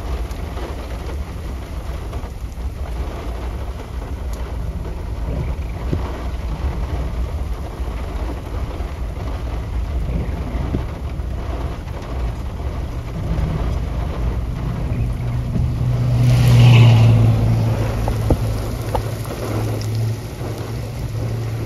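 Rainstorm: steady rain with a constant low rumble. About two-thirds of the way in, a vehicle's engine hum builds, peaks as it passes a few seconds later, then eases off.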